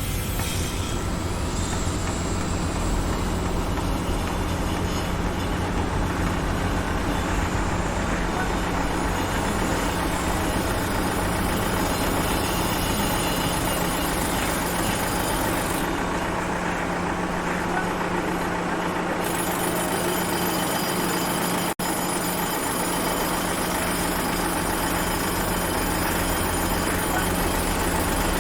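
Heavy diesel machinery or a truck engine running steadily, with a constant low hum under dense mechanical construction-site noise.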